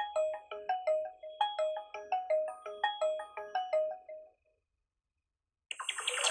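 HTC Desire C built-in ringtone playing from the phone's speaker: a quick, repeating melody of short pitched notes that stops about four seconds in. After a brief silence, the next, brighter ringtone starts near the end.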